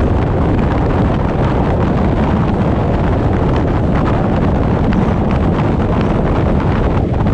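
Car driving at steady speed: constant low wind rumble buffeting the action camera's microphone, mixed with road and engine noise, unchanging throughout.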